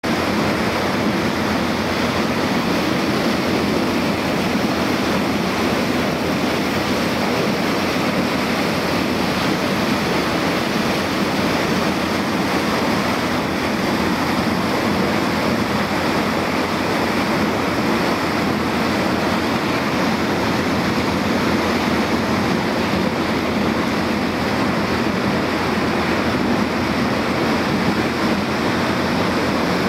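Small motorboat under way: a steady rush of water along the hull and wind on the microphone, over the low drone of the boat's engine.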